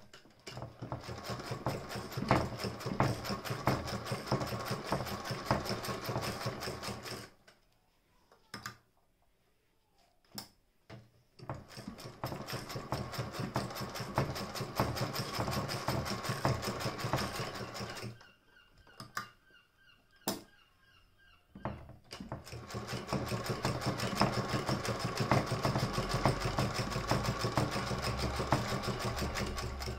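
Singer 201K hand-crank sewing machine stitching through leather: three runs of rapid, even clicking as the crank is turned, each several seconds long, with short pauses between them holding a few single knocks.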